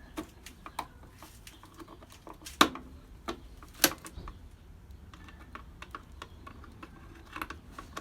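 Screwdriver tightening small screws into a space heater's housing: scattered light clicks and ticks of the tool and parts, with two louder sharp clicks midway.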